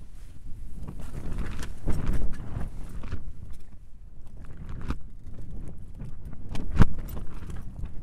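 Wind buffeting the tent in gusts with a low rumble, mixed with scattered small clicks and knocks from a cooking pot and mug being handled; the sharpest knock comes about seven seconds in.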